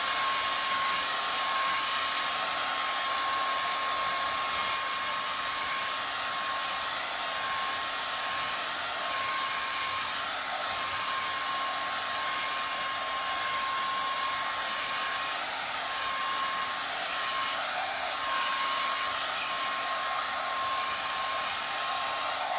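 Handheld hair dryer running steadily on damp long hair, a constant rush of air with a steady whine from its motor; the level dips slightly about five seconds in as the dryer is moved.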